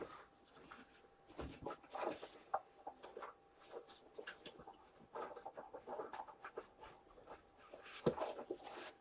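Faint, irregular rustling and clicking of trading cards and foil pack wrappers being handled, with a soft knock about one and a half seconds in and another near the end.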